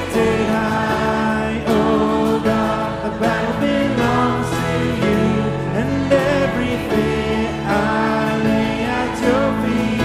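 Live contemporary worship music: a man singing the melody over acoustic guitar, electric bass guitar and a stage piano, played steadily throughout.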